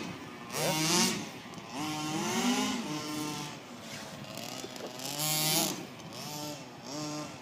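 Small two-stroke engine of a gas-powered RC baja, revving up and easing off over and over as it is driven around.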